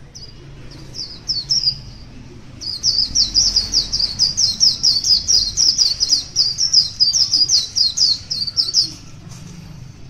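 White-eye singing: a few high chirps, then from about three seconds in a fast, even run of high, down-slurred notes, about four a second, that stops near the end.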